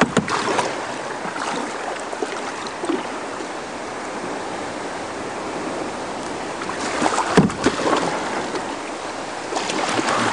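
Steady rush of river water pouring over a small dam waterfall just ahead of a kayak, with a couple of sharp knocks about seven and a half seconds in.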